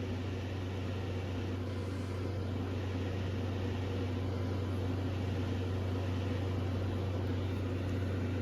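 Steady low hum under an even hiss, unchanging throughout: background noise of a running fan or appliance in a small room.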